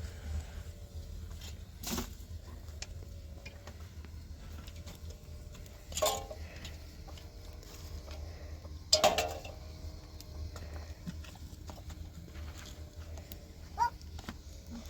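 Livestock bleating a few times, the loudest calls about six and nine seconds in, over a steady low rumble.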